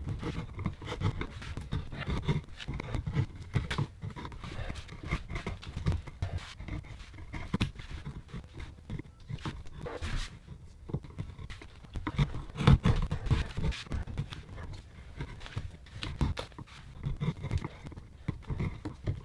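Sharpened flathead screwdriver scraping and cutting chips from a birch log in short, irregular strokes, with a louder knock about two-thirds of the way through.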